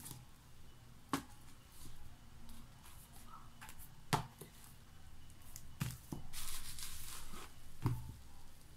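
Books being set down and shifted on a tiled floor by hand: a handful of short sharp knocks, a few seconds apart, with a brief rustle partway through.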